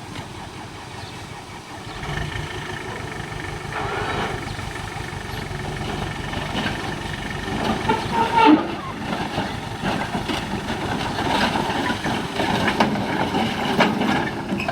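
Heavy diesel earthmoving machine running, its engine getting louder about two seconds in, with scattered knocks and rattles; the loudest knock comes about eight and a half seconds in.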